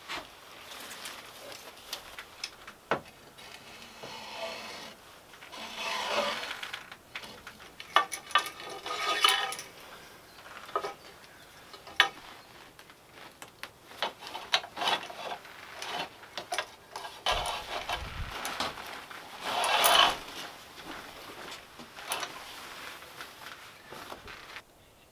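Hands-on handling noises: curtain fabric rustling in several longer swishes, among many small clicks and knocks on wood as a curtain is hung and a light cable is fixed along a log wall.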